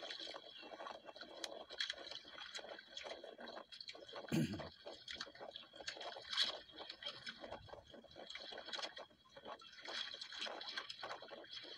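Sea water lapping and splashing against the hull of a small outrigger boat, with irregular small slaps and drips and one dull thump about four seconds in.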